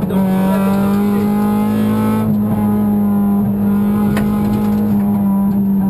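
Honda Civic VTi rally car's four-cylinder engine running hard at high, nearly steady revs, heard from inside the stripped cabin with road and tyre noise. The engine note breaks briefly right at the start, and there are two short knocks later on.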